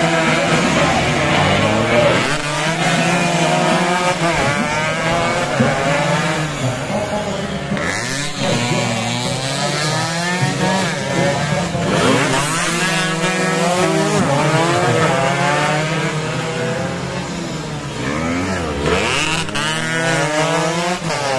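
Two-stroke 116 cc road-race underbone motorcycles revving hard as they pass one after another. Several engines overlap, their pitch sweeping up as they accelerate and falling away as each goes by.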